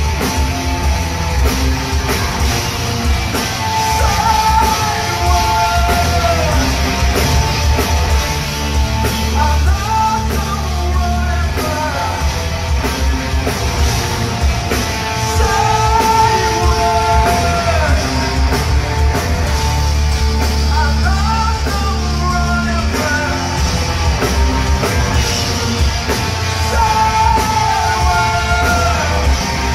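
Heavy metal band playing live in an arena: distorted guitars, bass and drums throughout, with sung vocal lines coming in again and again, heard from the audience.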